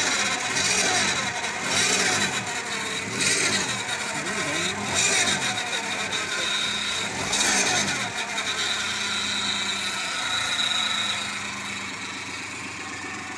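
Car engine revved up and down about four times, then settling to a steady run, with a steady high-pitched whine throughout; this is the gear noise complained about.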